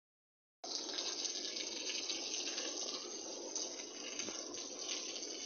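Steady, even rushing noise of a thunderstorm's wind and rain, starting abruptly about half a second in.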